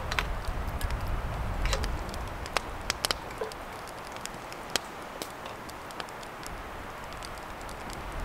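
Beer poured from a bottle into a drinking cup, over scattered sharp crackles and a steady low rumble.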